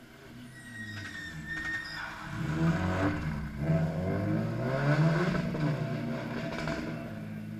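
A Subaru Impreza rally car's turbocharged flat-four engine comes through a gravel hairpin. Its revs rise and fall several times as it brakes, changes gear and accelerates away. It grows louder, peaks in the middle, then fades as it pulls off.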